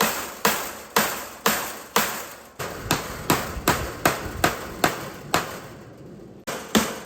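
Repeated hammer blows driving fasteners into a wooden frame, about two strikes a second, then quickening to about three a second, with a pause of about a second near the end before the strikes resume.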